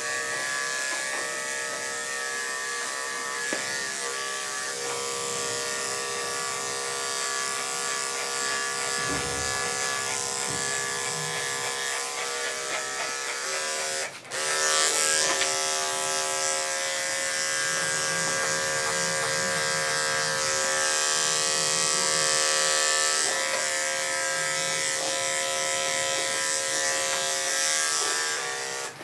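Andis 5-speed electric dog clipper with a 7 blade running steadily as it clips through a dog's coat. It breaks off for a moment about halfway through and then runs on a little louder.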